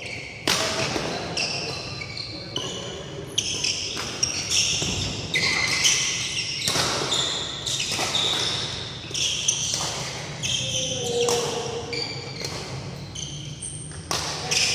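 Badminton rally: sharp racket strikes on the shuttlecock about once a second, with many short high-pitched squeaks of court shoes on the floor.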